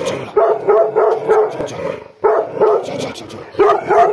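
Bhotiya dog (Himalayan sheepdog) barking in rapid, pitched runs, in an aggressive mood, with a short break about two seconds in.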